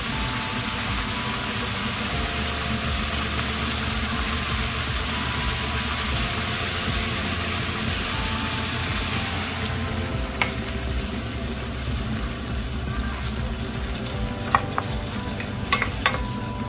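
Food sizzling as it fries in a pan, over a low steady rumble. The sizzle softens about two-thirds of the way through, and a few sharp clicks of a utensil against the pan come near the end, as the food is stirred.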